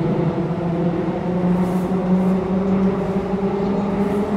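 Metro train running through a tunnel, heard from inside the carriage: a steady rumble with a motor hum that rises slowly in pitch as the train gathers speed.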